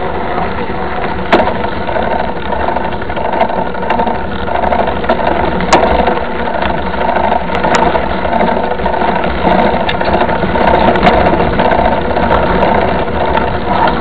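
Mountain bike rolling over a dirt road, heard through a camera mounted by the front wheel: continuous rattling and tyre rumble, with a few sharp knocks as the bike hits bumps.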